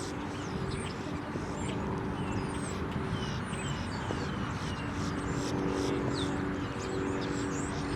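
Outdoor background noise at a cricket ground: a steady low rumble with a droning hum that fades in and out, and many short, high chirps.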